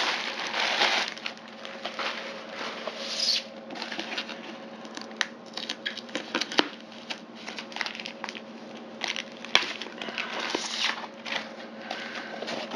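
Plastic shipping bag and foam wrap being pulled and handled: irregular crinkling and rustling, loudest near the start and about three seconds in, with a few sharp crackles later on.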